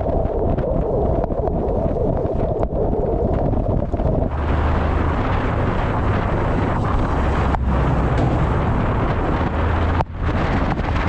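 Heavy wind rushing and buffeting on the microphone of a moving vehicle, over a steady low rumble; the rushing grows brighter about four seconds in and briefly drops out near ten seconds.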